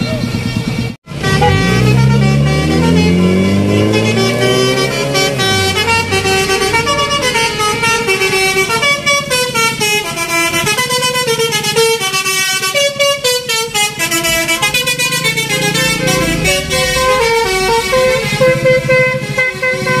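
Bus's telolet basuri musical horn: after a short break about a second in, it sweeps upward in pitch for a few seconds, then plays a stepping, flute-like melody of held notes.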